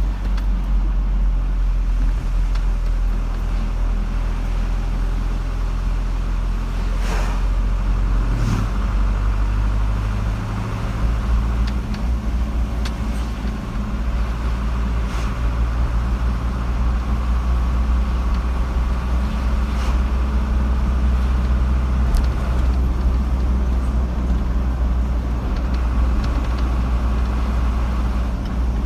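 Car driving on a road: a steady low engine and tyre drone, with a few brief clicks or knocks.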